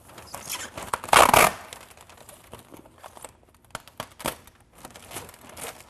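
Housewrap seam tape being unrolled and pressed onto a Tyvek DrainWrap seam by gloved hands: irregular rustling and crinkling of the tape and wrap, with one louder ripping rush about a second in as tape comes off the roll.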